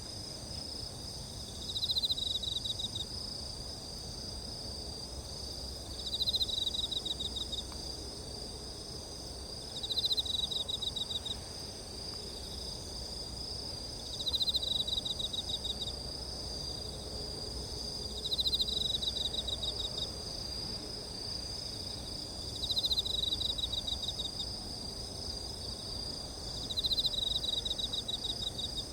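Insects chirring steadily, with a pulsed trill about a second long repeating about every four seconds.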